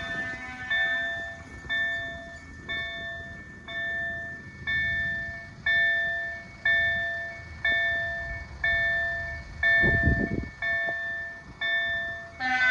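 KLD-4103 level-crossing warning bell striking about once a second, each stroke ringing and fading: the crossing is active for an approaching train. Just before the end a train horn starts sounding.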